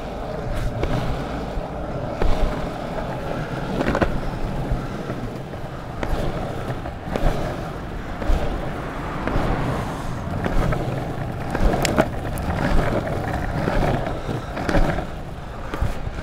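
Longboard wheels rolling over pavement: a steady rumble, broken every few seconds by short sharp clicks and knocks.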